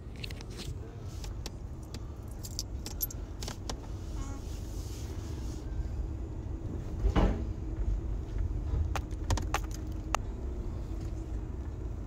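Car engine running, heard from inside the cabin as a steady low rumble, with scattered light clicks and rattles.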